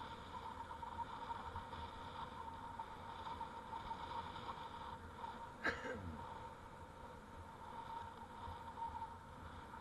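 Bicycle rolling along a paved street: a steady low rumble with a thin steady hum, and one sharp knock a little past halfway through.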